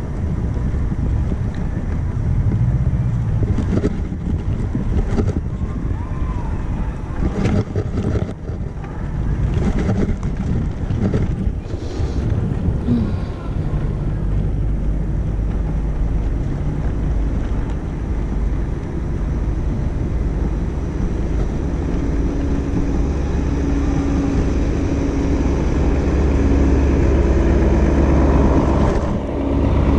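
Wind buffeting the microphone and road rumble while riding an electric wheelchair bike attachment, with scattered knocks in the first half. About halfway through a steady low hum joins in and grows louder toward the end.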